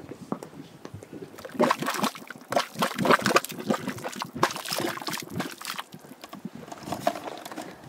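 Hot mudpot bubbling: thick mud bursting in irregular wet plops and gurgles, busiest in the middle.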